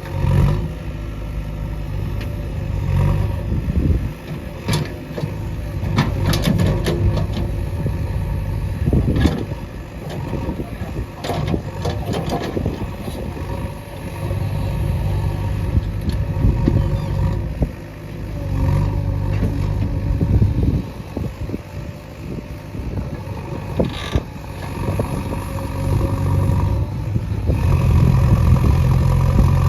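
JCB 3DX backhoe loader's diesel engine working under load, rising and falling in speed several times as the machine digs. Sharp knocks several times between about five and thirteen seconds in.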